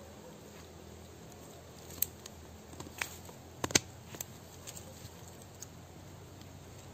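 Pruning shears snipping through the roots of a serut tree in the soil: a scatter of sharp clicks and snaps, the loudest a close pair a little under four seconds in.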